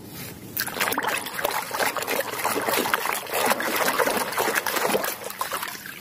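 Hands scrubbing a mud-covered toy cement mixer truck in a tub of water: busy splashing and sloshing that starts about half a second in and dies away shortly before the end.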